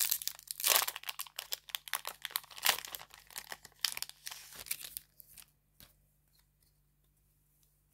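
Foil hockey-card pack wrapper being torn open and crinkled, in quick crackling bursts for about five seconds, then only a few faint clicks.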